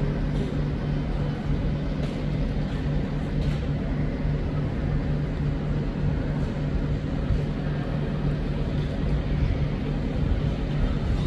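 Steady mechanical drone from a running vehicle: a constant low hum over an even rumble, with a few faint clicks.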